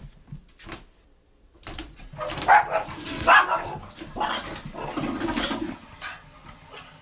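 A dog barking and vocalising, with the loudest barks about two and a half and three and a half seconds in.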